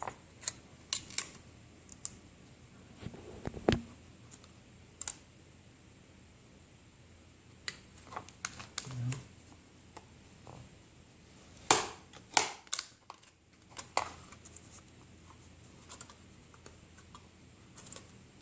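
Scattered clicks, taps and scratchy rubs of hands pressing and smoothing metal foil tape onto a 3D-printed plastic antenna reflector, with a cluster of the sharpest clicks a little past the middle.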